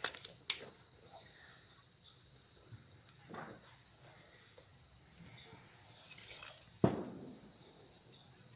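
Insects chirring steadily at a high pitch in the evening, with a few sharp clicks, the loudest about seven seconds in.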